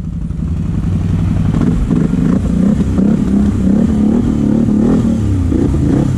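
CFMoto 850 XC ATV's V-twin engine pulling up a rutted dirt climb, its note rising and falling as the throttle is worked.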